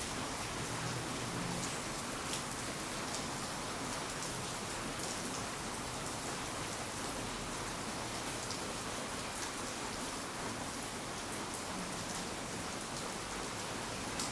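Steady rain falling, a dense even hiss with the ticks of individual drops hitting hard surfaces.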